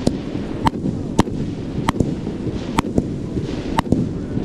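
Multi-shot consumer fireworks cake firing blue mines to colorful dahlias with gold strobe: about eight sharp reports, roughly two a second, over a steady low rumble.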